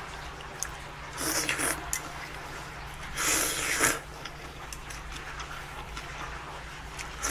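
Two slurps of cold buckwheat noodles in broth being sucked up from a bowl, about a second in and again around three seconds in, the second the louder.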